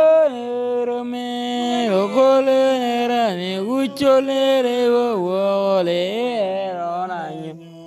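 A voice singing an Otuho (Lotuko) song in a chant-like style, holding long notes and sliding up and down in pitch between them. There is a brief click about four seconds in, and the singing fades near the end.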